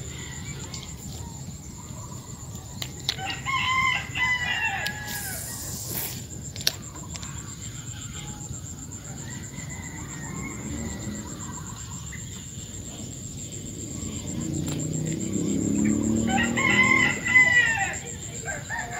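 A rooster crowing twice, a few seconds in and again near the end, each crow lasting about two seconds.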